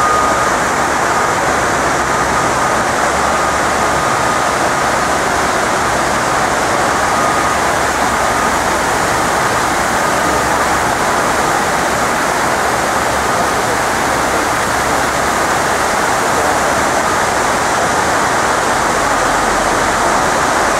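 Water falling down the 9/11 Memorial's reflecting-pool waterfalls: a loud, steady rushing with no break. A faint thin high tone sits over it in the first half.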